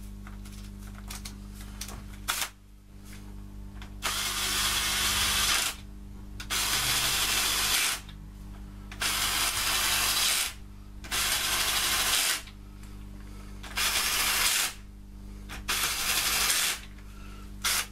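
Cordless drill-driver with a socket extension running down the main bearing cap bolts of an Austin A-Series 1098cc engine block, in six short runs of one to two seconds each. It only lightly pinches the caps up, so the crankshaft still turns freely.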